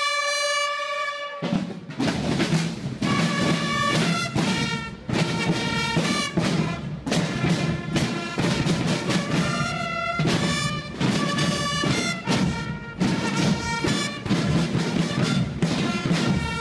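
Swiss carnival Katzenmusik (Guggenmusik) band playing: a held brass chord, then from about a second and a half in, bass drums and snare drums beating loudly with brass chords blaring over them.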